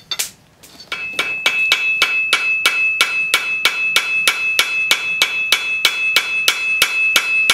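Hand hammer forging a red-hot horseshoe rasp on an anvil, drawing out a bevel on an adze blade. The blows start about a second in and run at about three a second, with the anvil ringing on one steady high note between them.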